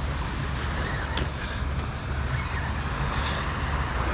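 Steady wind noise on the microphone over small waves washing onto a sandy beach.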